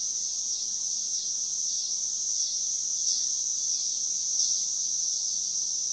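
Steady, high-pitched chorus of insects, an even shrill drone that carries on without a break.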